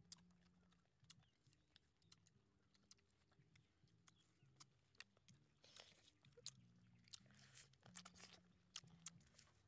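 People biting and chewing grilled chicken legs close to the microphone: scattered sharp crunching clicks and mouth smacks, with a few longer wet tearing sounds around the middle and near the end.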